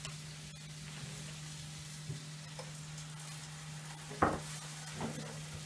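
Tomato and onion frying in a pan, a steady sizzle over a low hum. There is a short sharp clatter about four seconds in and a smaller one a second later.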